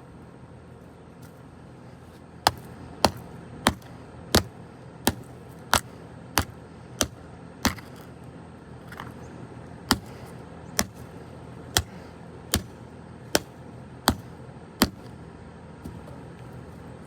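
A golf club striking a Bousnic plastic walkie-talkie over and over: about sixteen sharp hits, quick and regular at first, then a little more spaced out, with the radio holding up under the blows.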